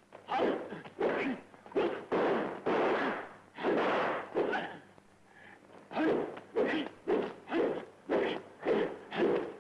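Old kung fu film fight sound effects: a rapid run of punch and swish hits, about two to three a second, with a brief pause near the middle.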